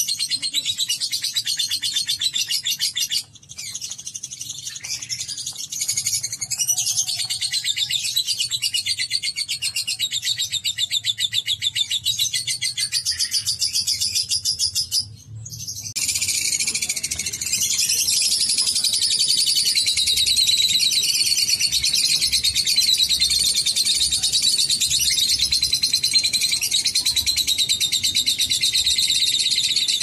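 Lovebirds ngekek: a long, rapid, unbroken high-pitched chattering trill. It breaks briefly about three seconds in and around fifteen seconds, and from about sixteen seconds on runs steadier and denser.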